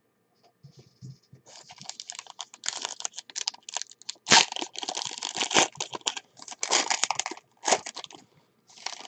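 Packaging crinkling and tearing as a sealed box of trading cards is opened and its wrapped pack is pulled out: a dense run of irregular crackles with one loud sharp crack about four seconds in.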